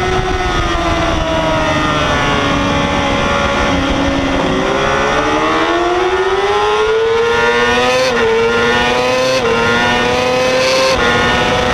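Yamaha R6 supersport motorcycle's inline-four engine at race pace. Revs fall as it slows for a slow corner, then climb steadily as it drives out, with three quick upshifts in the second half. Steady wind noise runs underneath.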